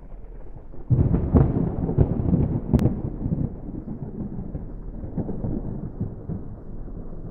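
Thunder: a rumble breaks out about a second in with sharp cracks, then rolls on and slowly fades.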